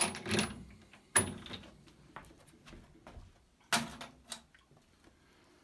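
Knocks and rattles of metal parts being handled at an outboard motor's leg, with a sharp knock about a second in and another a little before four seconds in.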